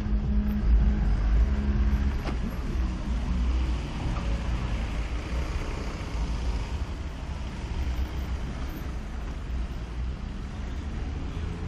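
Low rumble of a motor vehicle's engine running close by, with street traffic. It eases down over the first few seconds, then stays steady.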